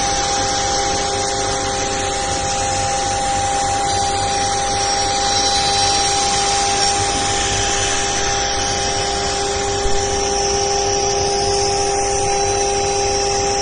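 CNC router spindle running and cutting grooves into a wooden panel: a steady whine of several held tones over the hiss of the bit cutting. A brief louder knock about ten seconds in.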